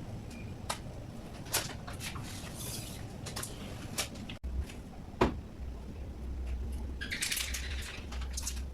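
Scattered sharp knocks and clicks of objects being handled, the loudest about five seconds in, with a rustling scrape near the end over a low hum.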